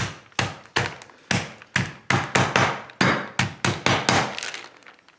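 Turkey tenderloins being pounded flat with a meat tenderizer through a plastic bag: a quick run of about fifteen dull knocks, roughly three a second and slightly uneven.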